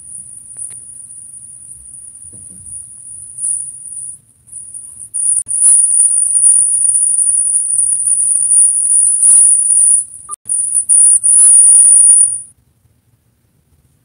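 A loud, steady, very high-pitched whine with a few short breaks and scattered clicks, cutting off sharply near the end.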